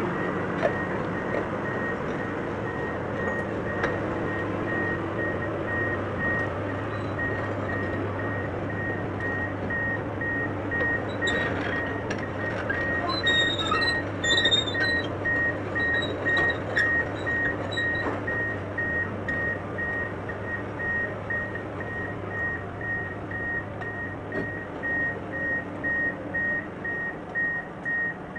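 SANY SR285R rotary drilling rig moving off on its crawler tracks: a warning alarm beeps steadily at an even rate over the diesel engine's low running hum. Metallic clinks and squeaks come in around the middle, and the engine hum drops away near the end while the beeping carries on.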